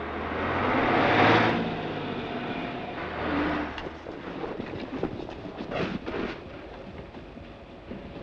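A DAF school bus's diesel engine runs as the bus drives by, loudest about a second in, then fades away over the next few seconds. It is followed by quieter scattered scrapes and crunches.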